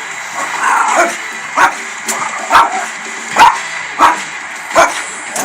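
A dog barking repeatedly: about six sharp barks, each under a second apart.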